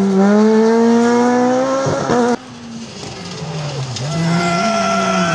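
Rally car engine revving up, its pitch climbing steadily for about two seconds, then cut off abruptly. A second rally car's engine follows, fainter at first and growing louder as it approaches.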